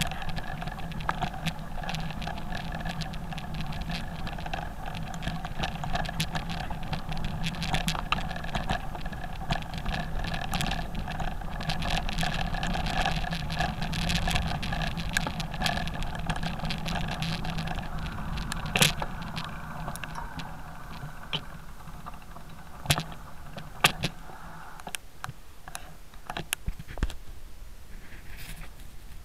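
Single-cylinder off-road motorcycle engine running at a steady pace, with wind noise and stones clicking against the bike. About 19 s in the engine note fades and the sound gets quieter, broken by a few sharp knocks.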